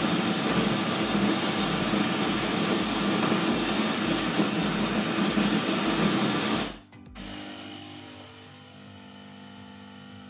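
The built-in grinder of a Siemens EQ.500 bean-to-cup espresso machine grinding coffee beans at the start of a cappuccino cycle, a loud steady grinding that cuts off about two-thirds of the way in. A much quieter steady hum with a few held tones follows.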